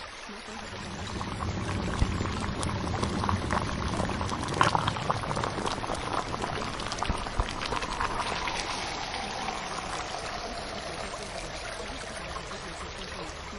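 Steady noise of bubbling, pouring water with small splashes and drips throughout.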